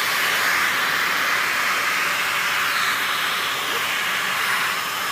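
Vacuum cleaner running steadily while its nozzle is worked over a cat's belly fur.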